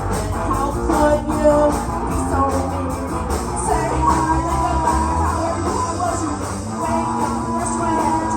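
Live rock band playing: electric guitars, bass and drums, with singing.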